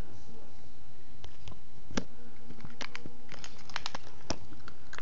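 A cat eating dry kibble from its bowl: irregular, crisp crunches, coming in a quick cluster about three to four seconds in.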